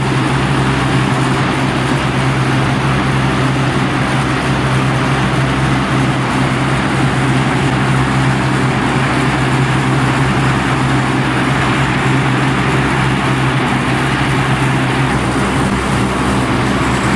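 Ball mill running: a steady, loud grinding rumble from the rotating drum, with a constant low hum from its drive.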